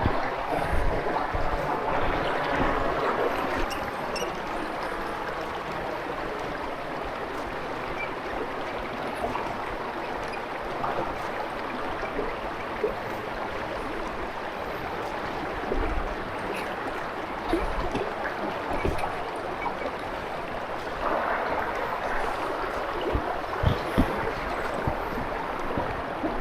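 Creek water running steadily, swelling louder twice, with a few scattered low thumps.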